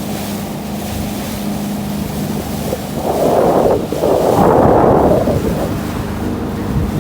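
Sea water and wind rushing, with two louder swells about three and four-and-a-half seconds in, over a steady low hum.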